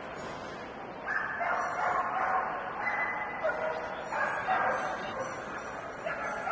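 A dog barking again and again, each bark smeared by the echo of a large hall.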